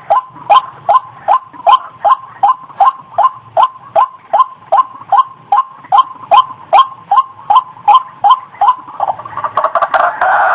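White-breasted waterhen calling, a steady run of short, falling 'kruak' notes at about two and a half a second, breaking into denser, overlapping calling near the end.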